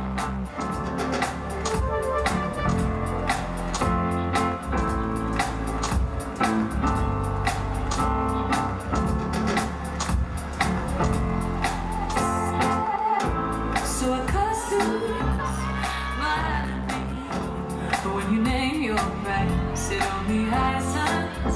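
A song with a steady beat and singing, played through a venue's loudspeakers for a dance routine. The beat breaks off briefly a little past halfway, and the singing comes through more clearly near the end.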